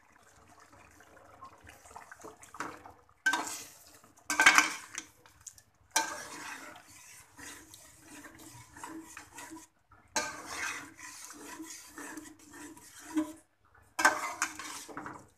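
Metal spoon scraping and clattering against an aluminium karahi while stirring beef in ghee. The scraping comes in several separate bouts, starting about three seconds in.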